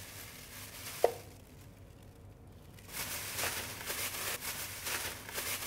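Plastic bag rustling and crinkling as floured lamb shanks are shaken inside it to coat them, in quick repeated strokes from about three seconds in. A single sharp tap about a second in.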